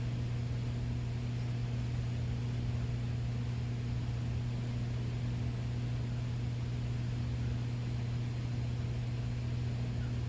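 Steady low hum over an even hiss, unchanging throughout: constant background machine or electrical noise.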